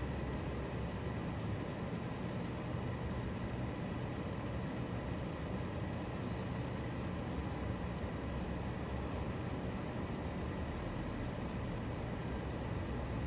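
Steady road and engine noise of a car driving, heard from inside the cabin: an even low rumble with no sudden changes.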